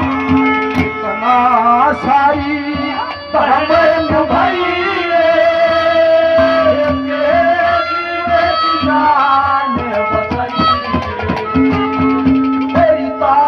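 Haryanvi ragni folk music played live: a hand drum beats quickly under a held melody line that bends in pitch.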